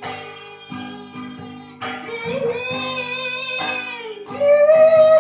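Music: a young child singing over strummed acoustic guitar, with a long held note starting near the end.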